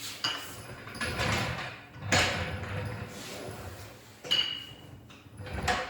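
Metal knocks and clinks from tools and parts being handled while working on an engine, about five separate hits, the loudest about two seconds in; one hit near the end of the middle leaves a short high metallic ring.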